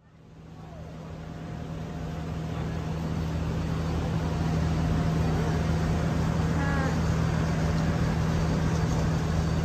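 Street ambience fading in over the first few seconds: a steady low engine hum over a general noise wash, with a faint voice about seven seconds in.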